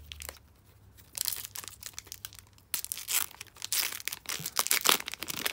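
Trading-card pack wrapper being torn open and crinkled by hand: quick crackly rustling that starts about a second in and gets louder after nearly three seconds.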